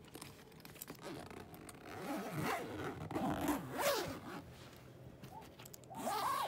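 Zipper of a soft-sided fabric suitcase being pulled shut in several uneven strokes, a rasp that rises and falls in pitch. It is loudest about two to four seconds in and again near the end. The bag is packed very full, and the zipper is being worked closed around it.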